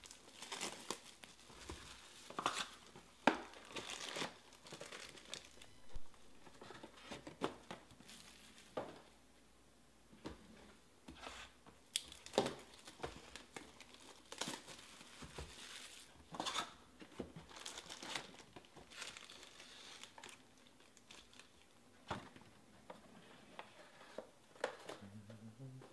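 Foil-wrapped Panini Prizm baseball card packs crinkling and rustling as they are pulled out of their cardboard hobby box and stacked, with a scatter of sharp crackles and light taps.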